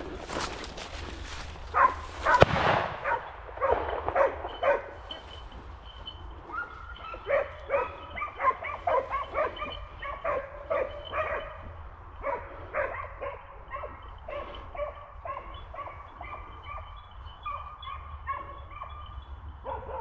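Dry brush and twigs rustling and snapping for the first few seconds, then wild boar hunting dogs barking in a quick, steady run of short barks, several a second.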